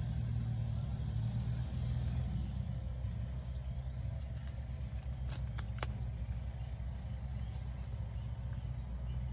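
Steady low outdoor rumble with a faint high whine that slides down in pitch over the first few seconds and then holds steady; a few light clicks about halfway through.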